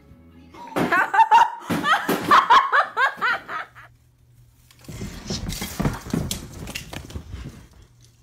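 A person laughing hard in quick bursts for about three seconds. Then, after a short gap, a few seconds of rustling, shuffling noise.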